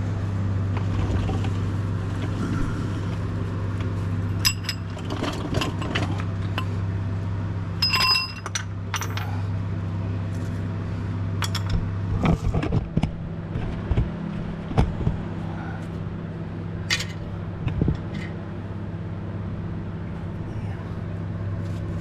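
Metal hand tools and sockets clinking and clattering as they are picked up and set down, in scattered knocks, a few of them ringing briefly like struck steel. A steady low hum runs underneath.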